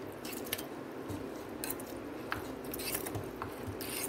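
Wet soaked poha (flattened rice) being tipped and scraped from a steel bowl into a stainless steel mixer-grinder jar: soft squishes with a scatter of short light clicks.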